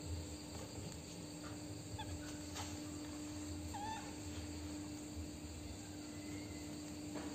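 Baby monkey giving one short, bending squeak about four seconds in, with a few tiny chirps before it. Two faint clicks sit over a steady low hum.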